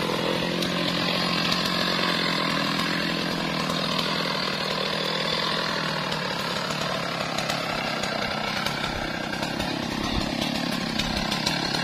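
Stihl MS 660 two-stroke chainsaw running steadily.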